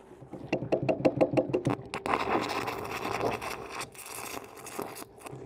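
Stick welding aluminium: the arc sputters in a fast run of sharp crackles as the aluminium rod strikes, then settles into a steady crackling hiss as the rod burns onto the bowsprit.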